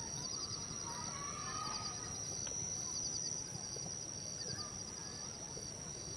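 Natural outdoor ambience: a steady high insect drone with repeated short chirping trills of insects above it, and a few scattered bird calls.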